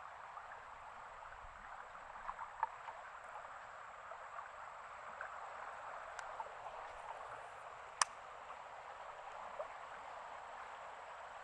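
Faint, steady rush of flowing water, with a few light clicks and one sharper click about eight seconds in.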